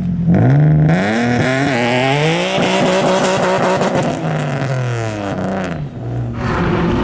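A car engine revving up, its pitch climbing over the first two or three seconds, holding high and steady, then dropping back about four to five seconds in.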